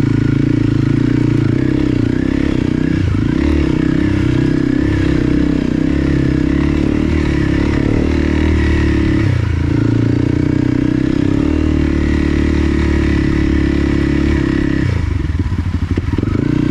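Dual-sport motorcycle engine running steadily on an off-road trail, its pitch shifting as the throttle changes. About fifteen seconds in it drops briefly to a low, pulsing beat, then picks up again.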